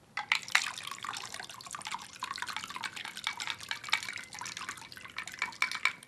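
A shaken cocktail poured from a stainless-steel cocktail shaker into a martini glass: a thin stream of liquid splashing and dripping into the glass as a dense run of quick, small patters. It starts just after the opening.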